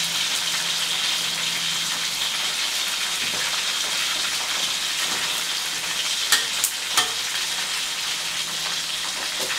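Duck beaks deep-frying in oil in a steel wok, a steady dense sizzle. About six to seven seconds in come three sharp clicks of the metal ladle against the wok.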